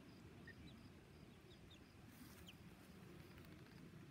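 Faint, high peeping from young Silkie chickens: a few short, falling chirps scattered through, over a faint, regularly repeating insect chirp.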